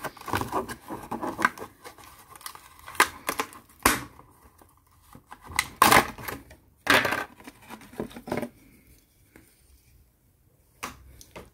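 A Hot Wheels blister-card package torn open by hand: the cardboard backing card tearing and the clear plastic bubble crackling and snapping as it is pulled free. The crackling stops about eight and a half seconds in, and a couple of light clicks follow near the end.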